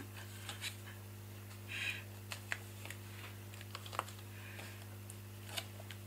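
Faint rustling and a few light clicks of card and paper being handled while the backing is peeled off 3D foam pads, with a short rustle about two seconds in. A steady low electrical hum runs underneath.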